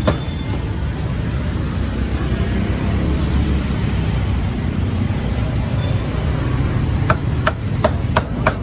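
Steady street traffic rumble with background chatter, and a quick run of sharp knocks near the end.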